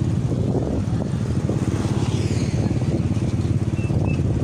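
Motorcycle engine running steadily, a close, even low rumble that holds at one speed, heard from on board a moving vehicle.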